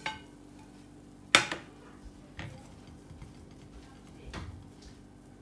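Frying pan and ceramic plate knocking together: one sharp clack about a second and a half in, then a few fainter knocks, over a steady low hum.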